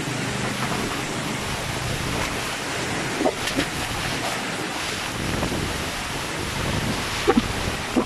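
Typhoon-force wind gusting with heavy rain, a steady rushing noise. A few sharp knocks stand out about three seconds in, and a quick pair comes near the end.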